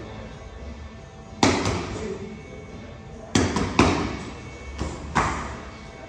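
Boxing gloves smacking focus mitts: a single sharp punch about a second and a half in, then a quick pair around the middle and two more a second later, with music playing in the background.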